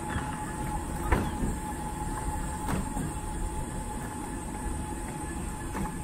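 Small electric vehicle rolling over paving, likely a mobility scooter: a steady low rumble under a constant faint motor whine, with a few sharp clacks as the wheels hit bumps.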